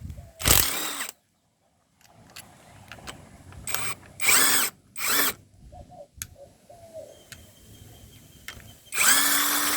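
Power drill driving a socket to back out engine bolts, run in a few short trigger bursts and then one steady spin of about two seconds near the end.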